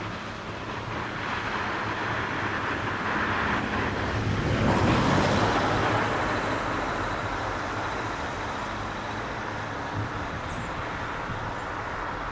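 Motorway traffic noise: a passing vehicle's tyre and engine hiss swells to its loudest about five seconds in, then fades back into the steady road noise.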